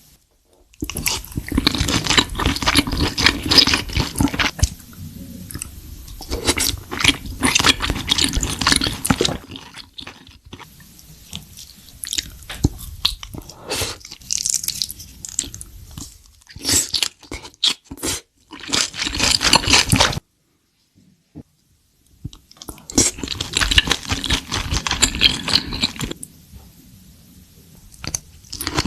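Chewing and biting food close to the microphone, with wet and crunchy mouth sounds in bursts, broken once by about two seconds of dead silence past the middle.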